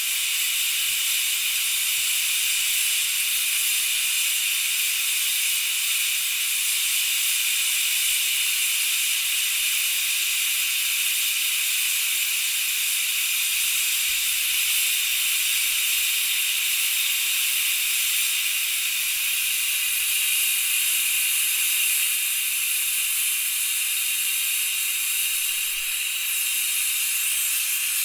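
Steam releasing in a steady, high-pitched hiss that holds level without a break.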